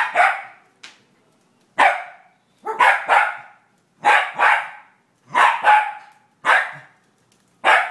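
Scottish terrier barking repeatedly: about ten barks, roughly one a second, several coming in quick pairs.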